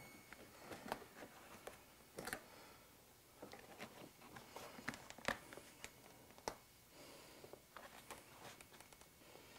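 Faint handling noise from hands working at a Gen 2 Suzuki Hayabusa's plastic fairing panels: scattered light clicks, taps and rubbing, the sharpest click about five seconds in.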